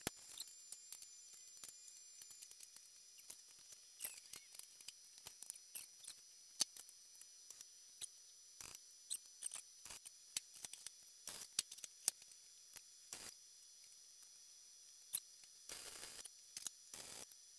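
Welding a sheet-metal floor-pan patch: faint, scattered ticks and crackles over a thin high whine, with a few slightly longer crackling bursts near the end.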